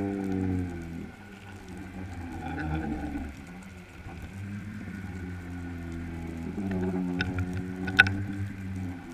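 Underwater drone with a low hum and several wavering tones that slowly rise and fall, typical of a boat's motor heard through the water. A few sharp clicks and one loud knock come near the end.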